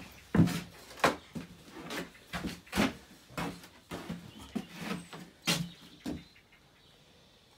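Irregular light knocks and scuffs, about two or three a second, as a child moves about a potting bench and handles a terracotta pot; they stop about six seconds in.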